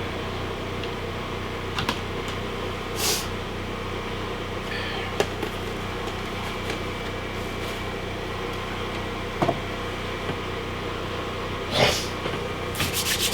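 Steady mechanical hum, with a few light knocks and two short rustles from handling things.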